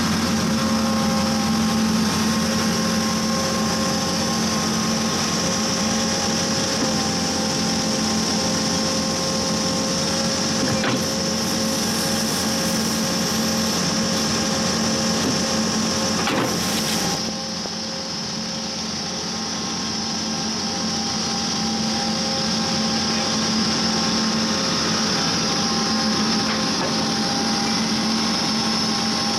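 An 80x100 horizontal directional drilling rig running: a steady engine and hydraulic drive sound with a high whine over it. The sound drops a little about halfway through and slowly builds back.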